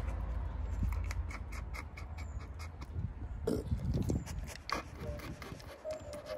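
American Staffordshire terrier panting rapidly, about four breaths a second, right at the microphone. About halfway through come louder snuffling mouth and nose sounds as its nose comes up to the microphone.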